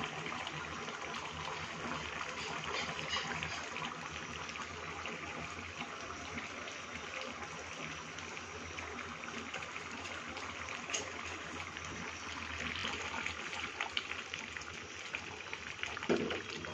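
Fish curry simmering in a pan on the stove: a steady bubbling sizzle with many small pops.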